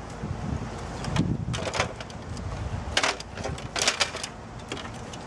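Hard plastic clicking and clattering from an HP inkjet printer's casing and parts as they are pried and lifted apart by hand, coming in a few quick clusters over a low wind rumble on the microphone.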